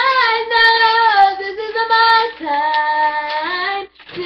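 A girl singing solo, holding long notes that bend slightly in pitch, with a short break for breath near the end.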